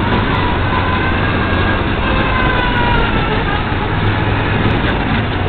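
Off-road buggy engine running while the buggy drives, a loud steady low drone under a dense rushing noise, with a faint whine that sags a little in pitch.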